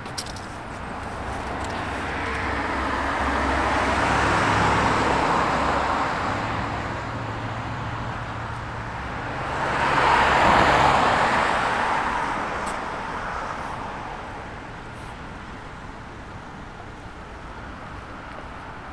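Cars passing on a road, two in turn: one swells and fades about four to five seconds in, and a louder one goes by about ten seconds in.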